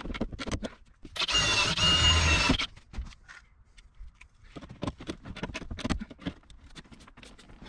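A power drill runs for about a second and a half, with a steady whine, boring a rivet hole through a sheet-metal floor patch. Short clicks and taps follow as a hand rivet gun is worked on the patch.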